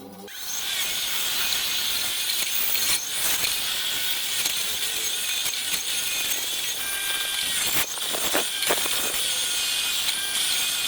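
Motorised wire brush wheel scouring the steel clamp of a fishing magnet, a steady hissing scrape of bristles on metal that builds up in the first half second.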